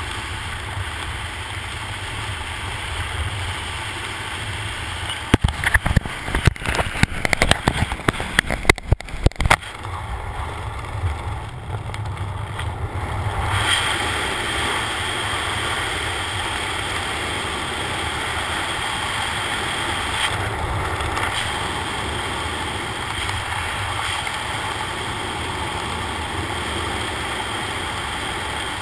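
Rushing wind of skydiving freefall blasting over a body-mounted camera, a steady roar with a low rumble. A run of sharp cracks and knocks comes between about five and ten seconds in, and the rush turns brighter and steadier a few seconds later.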